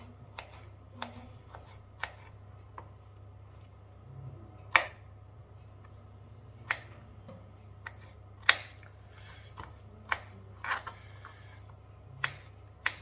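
Kitchen food preparation: irregular knocks and clicks of utensils on hard surfaces, roughly one a second and unevenly spaced, with the loudest knocks about five and eight and a half seconds in, over a steady low hum.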